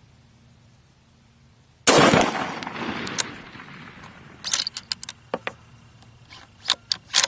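Howa 1500 bolt-action rifle in 6.5 Creedmoor firing one shot about two seconds in, the report dying away over a second or two. Then two runs of sharp metallic clicks as the bolt is worked to eject the spent case and chamber the next round.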